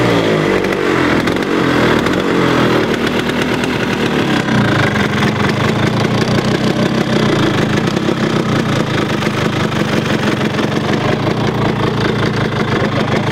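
1950s Vespa scooter's two-stroke single-cylinder engine, blipped and then coming down in pitch over the first four seconds. It then idles steadily for the rest of the time.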